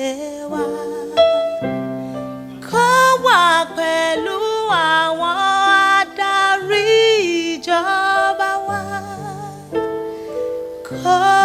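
Slow worship music: a voice sings a melody with vibrato over held keyboard chords.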